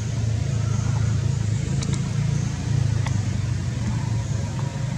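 A motor vehicle's engine running steadily: a continuous low drone, with a few faint ticks over it.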